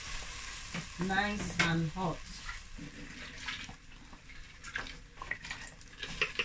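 Blended tomato sizzling in a hot pot, with scattered small crackles and pops. A brief voice sound about a second in.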